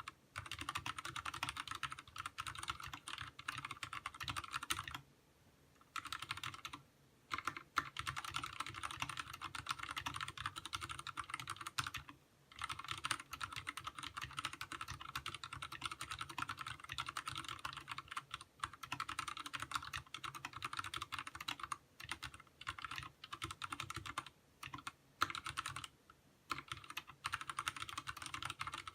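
Fast, steady typing on a Vortex Race 3 mechanical keyboard with Cherry MX Speed Silver linear switches and DSA-profile keycaps, with a few brief pauses.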